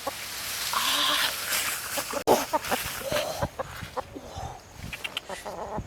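Short animal calls mixed with rustling, and a single sharp click a little over two seconds in.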